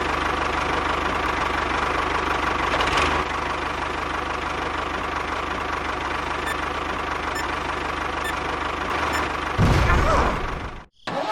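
A small motor running steadily with a fast, even pulsing. It gets briefly louder near the end, then cuts off abruptly.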